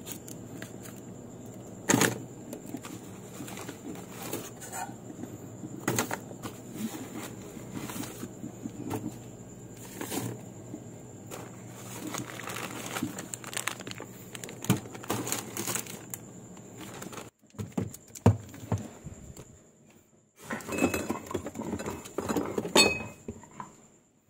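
Plastic grocery packaging rustling and crinkling as packs and bottles are stacked into a refrigerator, with irregular sharp knocks of items set down on the shelves and door bins. A steady low hum runs underneath and stops about two-thirds of the way through.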